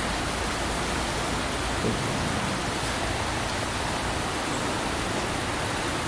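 Steady rush of shallow river water flowing over and around stones, an even hiss with no breaks.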